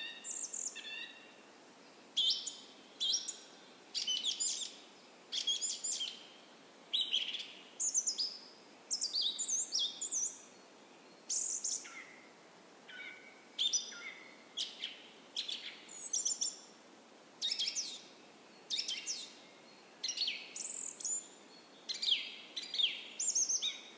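Songbirds singing: a run of short, varied high-pitched phrases with quick downward sweeps, coming about once a second.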